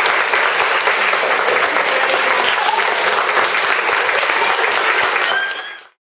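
Audience of young children applauding, with dense steady clapping that fades out quickly just before the end.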